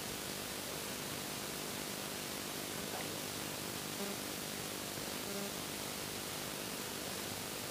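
Steady, even hiss of rain, with a few faint soft sounds of eating, hand-fed rice and chewing, about three and four and five seconds in.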